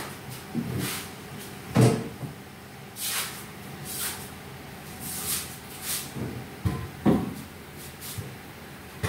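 Parts of a 2009 Honda CR-V automatic transmission being handled and set down on a workbench during teardown: a few separate dull clunks, the loudest about two seconds in and another about seven seconds in, with lighter sharp clinks between them.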